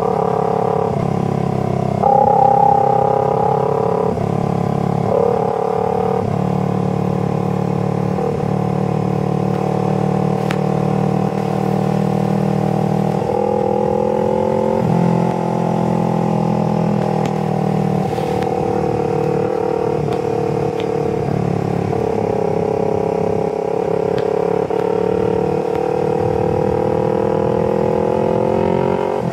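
Small parallel-twin sport bike engine running under way. Its pitch shifts and drifts slowly as the throttle changes, with a rise in level about two seconds in.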